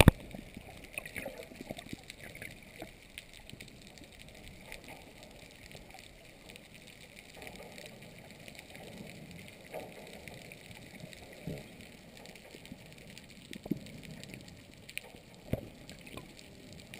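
Muffled underwater ambience heard through a submerged camera: faint gurgling water noise with scattered soft clicks and knocks.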